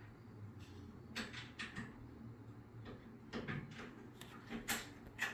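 Light knocks and clicks at irregular intervals, about eight in all, over a low steady hum, as of hard objects being handled or set down.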